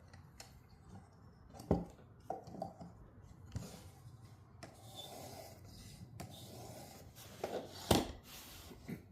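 Abrasive of a Work Sharp guided knife sharpener being stroked along a knife blade, a scraping rub in repeated strokes. A couple of sharp knocks stand out, one about two seconds in and the loudest near the end.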